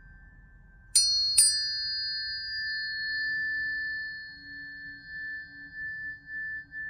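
Tuning fork struck twice, about half a second apart, each strike ringing out in a clear high tone and a lower tone. The high tone fades away toward the end, while the lower tone keeps ringing with a gentle waver.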